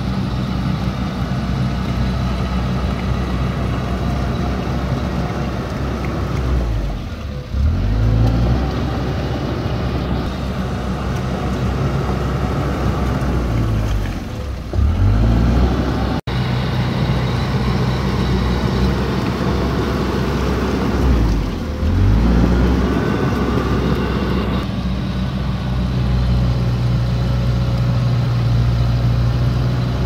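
Komatsu D31P bulldozer's diesel engine running hard. Its note briefly sags and picks up again three times, about seven seconds apart.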